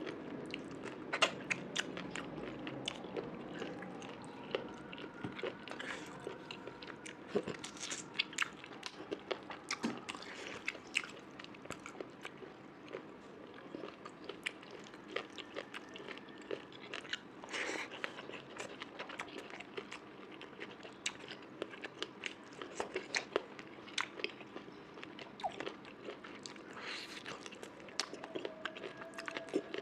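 A person chewing and biting food close to the microphone, with many irregular crunches and wet mouth clicks.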